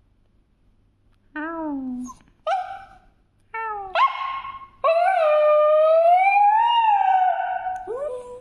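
A pet dog vocalising: a few short whining yelps, then one long howl about five seconds in that slowly rises in pitch and falls away at the end.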